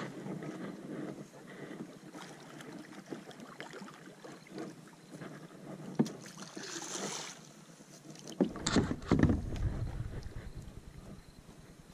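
Water sloshing and splashing around a fishing kayak, with scattered knocks against the hull and a sharp click about six seconds in. The loudest part comes around nine seconds in: a cluster of hard knocks over a low rumble.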